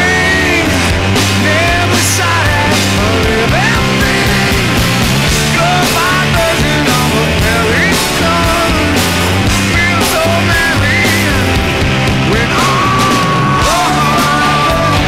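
Rock music playing at a steady, high level, with bass notes and a melodic lead line.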